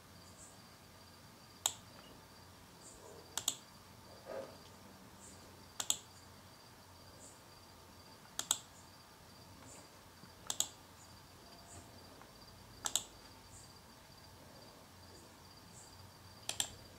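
Computer mouse clicks, about seven sharp clicks at irregular intervals of a couple of seconds, several heard as quick double clicks, over a quiet room with faint high chirps recurring in the background.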